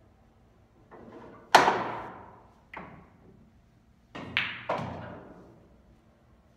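Sharp clacks of pool balls on a billiard table, each ringing briefly. There is a loud knock about a second and a half in and a lighter one a second later. Then, about four seconds in, come three quick clacks as the cue strikes the cue ball and the balls collide.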